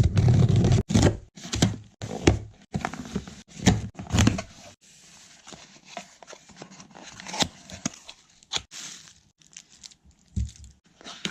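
A cardboard package being opened by hand: tearing and crinkling of the packaging, with knocks and thuds as the box is handled. It is loudest and busiest for the first few seconds, with heavy thuds at the start, then settles into quieter, scattered rustles.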